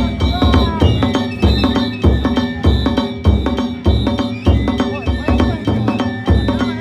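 Danjiri-bayashi, the festival float's own percussion music: heavy drum beats at about two a second, mixed with sharper hits and steady metallic ringing.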